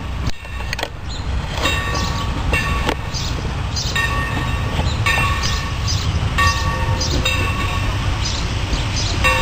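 Steam locomotive V-820 approaching along the line, heard as a steady low rumble. A short, clear ringing tone repeats about once a second over it.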